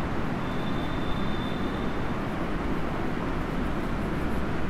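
Steady low background rumble with no speech, even throughout, with a faint thin high tone for a second or two early on.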